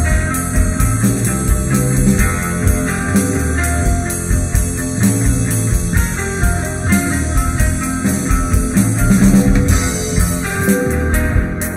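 Psychedelic rock band playing: guitar and bass over a drum kit keeping a steady beat.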